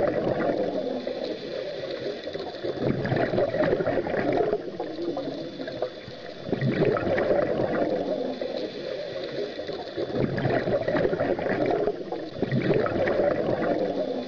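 Gurgling, bubbling underwater water ambience that swells and eases every three to four seconds.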